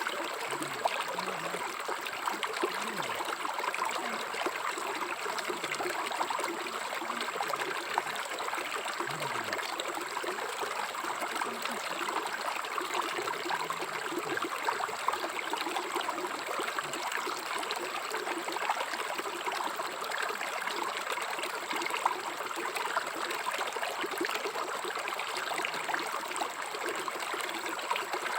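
River water flowing, a steady babbling rush with small splashes scattered through it.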